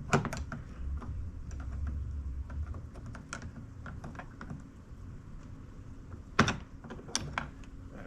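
Irregular clicks, taps and knocks of metal and plastic door parts being handled and prodded with a tool inside a pickup's door, while a door handle's latch-release piece is worked into place. One sharp knock comes just after the start and two more come near the end.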